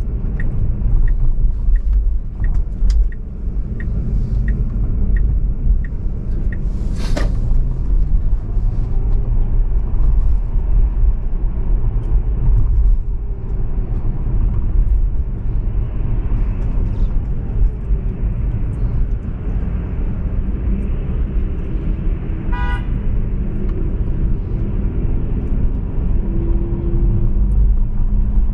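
Steady low road rumble of a car driving on city streets. Regular light ticking about twice a second runs through the first six seconds or so. About seven seconds in there is a brief hiss, and near the two-thirds mark a short car-horn toot.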